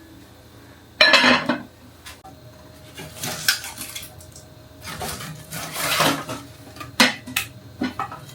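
Kitchenware clinking and clattering in several short bouts, with a sharp knock near the end, like utensils handled against dishes.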